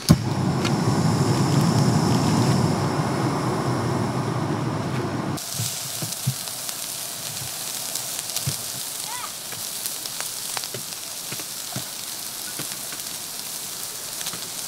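A portable gas camping stove is lit with a sharp click, and its burner flame gives a steady rushing noise. About five seconds in, this gives way to sliced pork sizzling on a hot griddle pan: a high hiss with scattered small pops.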